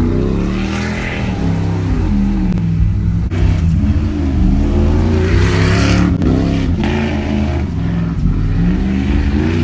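Second-generation Dodge Ram single-cab pickup's engine revving up and down over and over as it spins donuts, its rear tires spinning in loose dirt.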